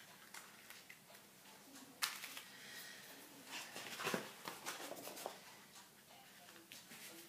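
Faint rustling and crinkling of paper sheets handled over a paint-covered printing plate, with a sharper crackle about two seconds in and more rustling a couple of seconds later as a fresh sheet is laid down.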